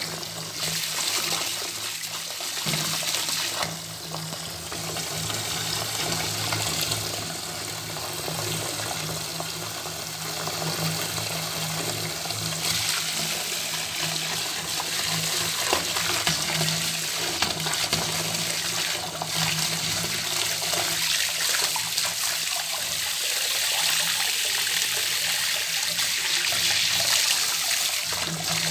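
Bathtub tap running, water pouring steadily into the tub with slight swells in level.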